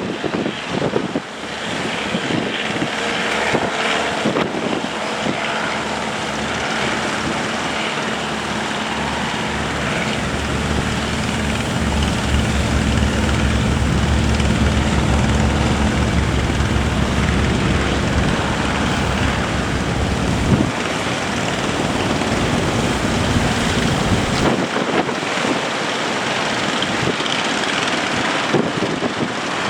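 Fishing boat engine running steadily under heavy wind noise on the microphone. Its low drone grows stronger about a third of the way in and drops away about two-thirds through.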